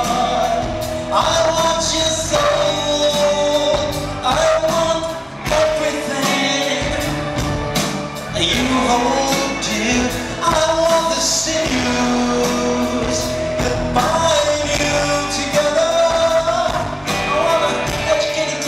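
Live rock band playing with a man singing lead into a microphone, the melody held in long, wavering phrases.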